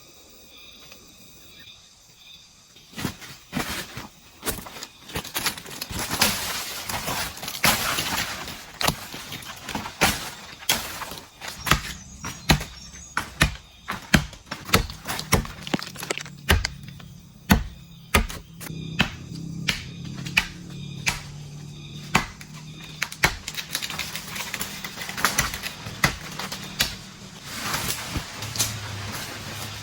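Bamboo being chopped and split: a run of sharp knocks and cracks with scraping in between, starting a few seconds in. A low steady hum joins about halfway through.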